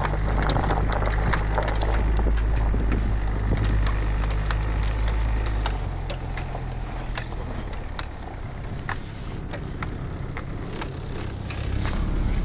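Off-road vehicle on snow chains driving through deep snow: the engine runs steadily under load, with a constant crunching and clicking from the chained tyres and packed snow. The engine note drops about halfway through.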